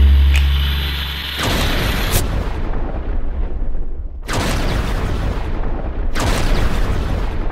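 Trailer-style boom and impact sound effects. A deep boom at the start fades over about a second and a half. Three noisy hits follow, about one and a half, four and six seconds in, each dying away over about two seconds.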